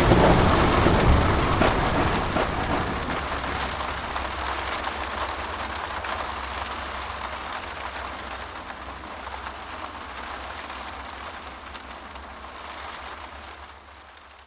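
Rain falling steadily with a low thunder rumble underneath, the whole ambience fading out gradually.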